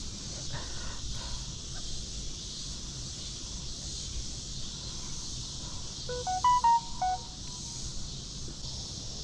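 A quick run of short electronic beeps at changing pitches, like a phone ringtone or notification tune, about six seconds in and lasting about a second. Under it is a steady high hiss and a low rumble.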